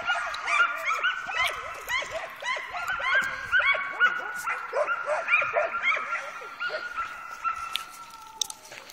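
Dogs yipping and whining: quick high yelps, several a second, over a held whining note, fading near the end.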